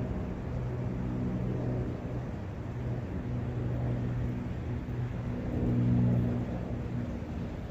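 Low, steady engine hum with a clear pitch, swelling about six seconds in, over the steady rush of a brook.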